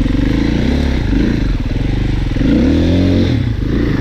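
2022 Sherco 300 SE Factory two-stroke dirt bike engine running at low to mid revs, the throttle opened and closed so the revs rise and fall, with a clear rev-up about two and a half seconds in.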